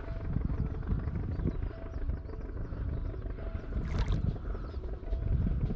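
A hooked common carp (sazan) splashes once at the water's surface about four seconds in while being played on the rod, over a steady low rumble.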